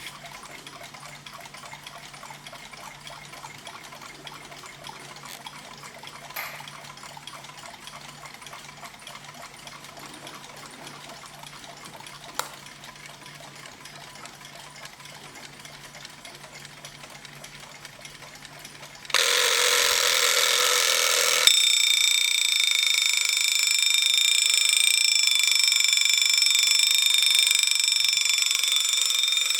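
Alarm clock alarm going off about two-thirds of the way in: a sudden loud, continuous ringing that starts as a harsh rattle and after a couple of seconds settles into a steady ring with several high tones. Before it there is only a faint low hum, with two small clicks.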